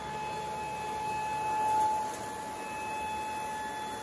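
Kündig wide belt sander with a planer head running while a board feeds through: a steady high whine over a continuous mechanical noise.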